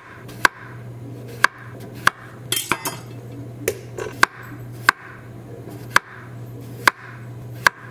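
A kitchen knife slicing small potatoes into rounds on a wooden cutting board. Each cut ends in a sharp knock of the blade against the board, about once a second.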